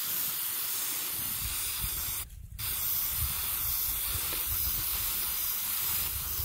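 Aerosol spray-paint can spraying in a steady hiss, stopping for a moment about two and a half seconds in, then spraying again.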